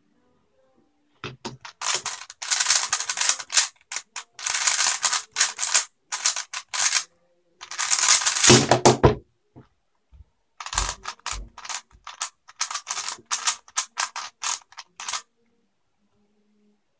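A 3x3 speedcube being turned very fast in a solve: bursts of rapid plastic clicking and clacking, broken by short pauses and one longer pause about halfway through. It starts about a second in and stops a couple of seconds before the end.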